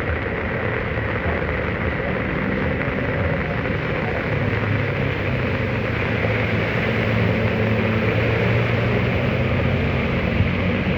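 Heavy rain falling steadily, with a low motor hum coming in and growing a little louder from about four seconds in.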